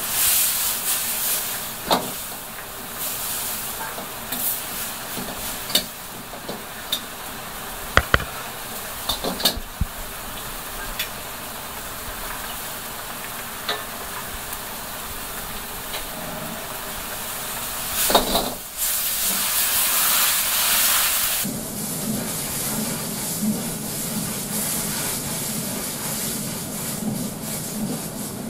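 Sauce bubbling and sizzling in a wok over a gas burner, with sharp clinks of a metal ladle against the wok and bowl in the first ten seconds. About 18 seconds in comes a loud burst of hissing, and from about 21 seconds the wok burner runs with a steady low rumble under the sizzle.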